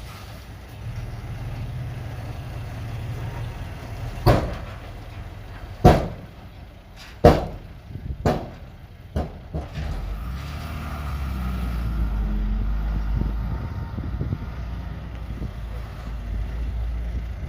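Diesel earthmoving machinery running with a low steady rumble. About six sharp metallic clanks come between four and ten seconds in. After that the engine note rises and runs louder.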